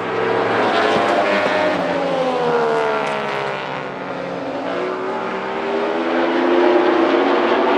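A field of Baby Grand race cars running at speed on an oval track, their engines falling in pitch as the cars go by about two to four seconds in, then rising again and getting louder near the end.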